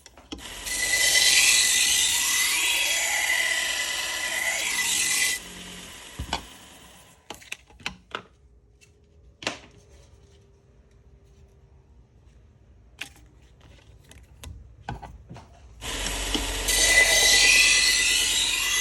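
Harbor Freight 1x30 belt sander with a 3M Cubitron II belt grinding a Victorinox butcher knife's blade: a steady high whine under a harsh grinding hiss for about five seconds, then it stops and dies away. After a pause with a few light clicks and knocks, it starts again about three seconds before the end.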